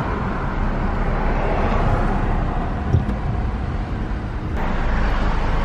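Car and street traffic noise heard from inside a car: a steady low rumble and hiss, with a single short knock about three seconds in.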